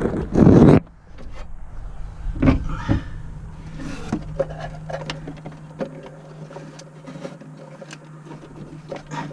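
Hands working a wire loose from inside a truck's dash: a loud rustling scrape about half a second in, then scattered clicks and knocks of plastic and metal. A steady low hum runs underneath.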